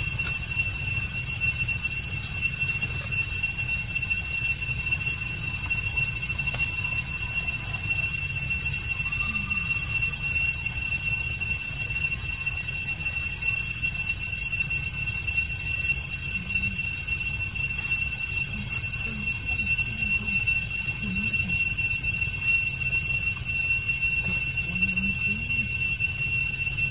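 A steady, unbroken high-pitched whine, one tone with its overtones, over a low rumble, with a few faint short low sounds in the second half.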